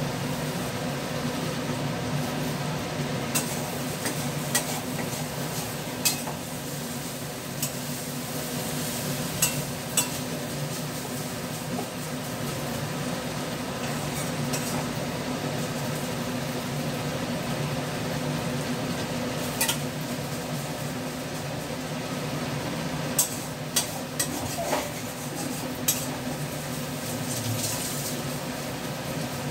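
A utensil stirring food in a metal karahi on a gas stove, with sharp taps and scrapes against the pan every few seconds over a steady frying sizzle and hum.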